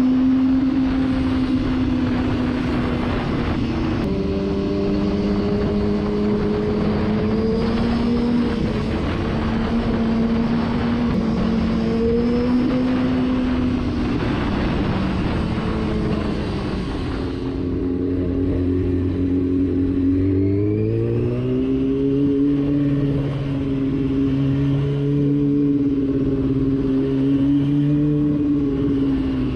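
Motorcycle engine running at road speed under heavy wind rush on the bike-mounted camera's microphone. A little past halfway the wind noise falls away as the bike slows in traffic, and soon after the engine note rises in pitch.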